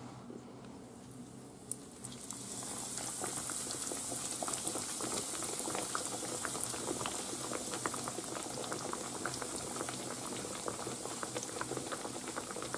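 Breaded veal cachopo frying in hot sunflower oil in a frying pan. The oil starts sizzling about two seconds in, as the cutlet goes in, and keeps up a steady crackling sizzle.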